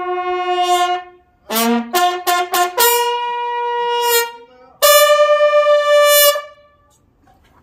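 Military bugle call played at a ceremony: single clear notes moving only between the bugle's few fixed pitches. A held note ends about a second in; after a short gap come quick short notes climbing to a held higher note, then the highest note is held long near the end and cut off.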